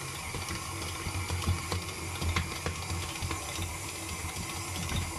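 KitchenAid stand mixer running, its dough hook kneading a ball of pizza dough in a stainless steel bowl: a steady motor hum with uneven knocks and clicks as the dough turns against the bowl. The dough has come together and is cleaning the sides of the bowl, a sign that the kneading is nearly done.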